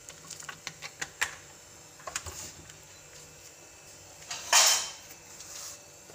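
Kitchen handling sounds while oil is poured from a bottle into a steel pot of raw onions and tomatoes: a run of light clicks and knocks in the first second or so, another small knock about two seconds in, and a brief loud rustling scrape about four and a half seconds in.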